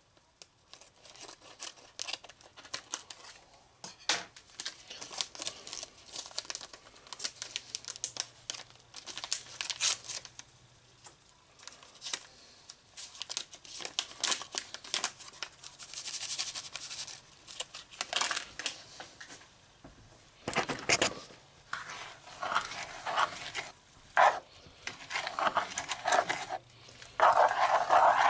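Seasoning packet crinkling and tearing as it is opened and shaken out over a frying pan, a run of many small crackles. In the last several seconds, louder repeated noises take over.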